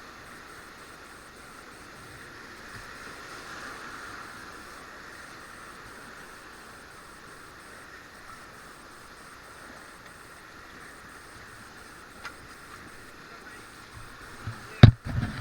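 Steady rush of a whitewater river. Near the end, a couple of sharp, loud knocks.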